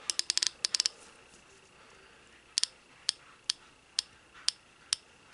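Icon long-format 3/8-inch drive flex-head ratchet with a 90-tooth mechanism, clicking as the handle is swung: a quick run of about eight sharp clicks at the start, then after a pause single clicks about two a second.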